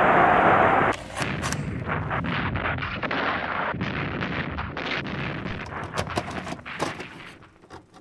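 Loud crowd noise cut off about a second in, then a rapid run of gunshots and artillery fire that thins out and fades near the end.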